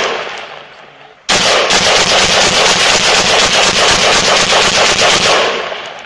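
AR-15 rifle fired semi-automatically as fast as the trigger can be pulled, several shots a second in a dense string. A short pause about a second in lets the echo die away before the rapid fire starts again, and it trails off near the end.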